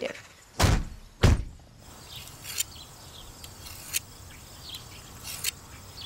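Two loud thuds about half a second apart, then faint bird or insect chirps over quiet outdoor background.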